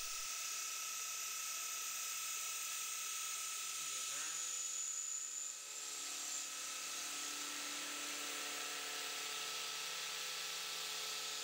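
CNC milling machine spindle running a large carbide face mill in a facing cut on aluminium: a steady whine with a hiss. About four seconds in, the pitch dips briefly and recovers as the cutter moves into the cut, and new tones join.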